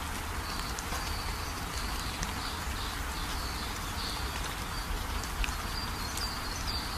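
Steady spring rain falling, with scattered drop ticks, and a small bird chirping in short high notes again and again over it.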